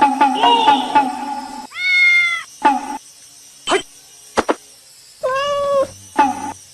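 Domestic cat meowing: two drawn-out meows about three seconds apart, with a few short clicks between them.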